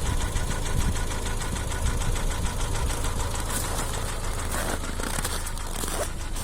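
Hyundai ix35 2.0-litre engine running with a fast, even knocking clatter over its steady hum. This is the engine knock the owner is showing.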